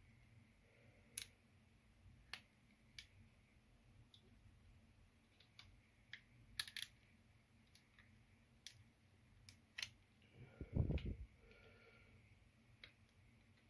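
Scattered sharp plastic clicks and snaps as a Renault key card's shell is pried apart with a thin blade, with a short run of louder, dull knocks near the end.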